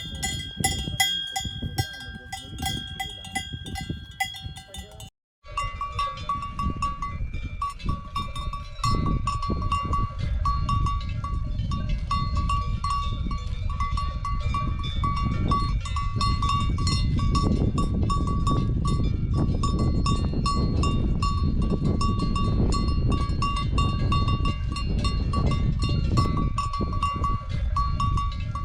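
Bells on grazing cattle clanking and ringing over and over. The sound cuts out briefly about five seconds in, then carries on as a denser ringing over a steady low rumble.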